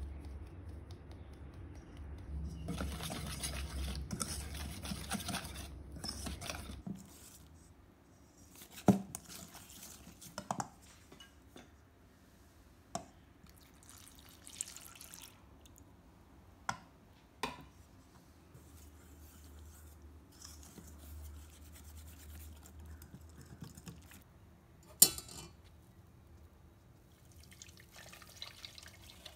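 Kitchen work in a stainless steel bowl: a few seconds of steady rustling and scraping, then scattered sharp metallic clinks of a whisk and mesh strainer against the bowl, with liquid pouring and dripping. The loudest clink comes near the end.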